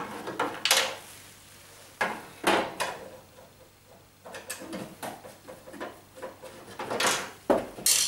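Screwdriver working the two plinth screws under a dishwasher door: irregular short clicks, scrapes and rubs of metal on plastic, the loudest about a second before the end.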